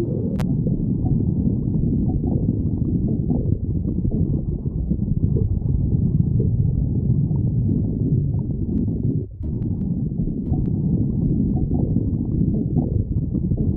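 Human stomach growling: a continuous low rumbling with gurgles, dropping out briefly about nine seconds in.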